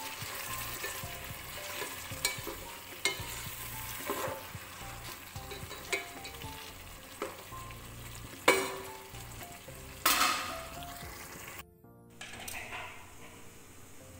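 Chicken with tomato and green chillies sizzling in a nonstick pot as a spatula stirs it, scraping and knocking against the pot again and again, with two sharper knocks about two-thirds of the way through. After a brief cut near the end, the sizzle is quieter.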